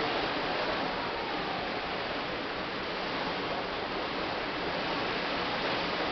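Steady rushing of wind and sea water heard from a ship's open deck, an even hiss with no distinct events.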